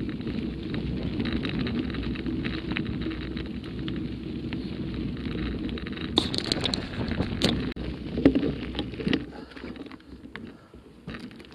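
Mountain bike rolling over a gravel dirt track, heard from a camera mounted on the bike: steady tyre crunch and rattling, with wind on the microphone. There are a few sharp knocks about six seconds in, and the noise dies down near the end.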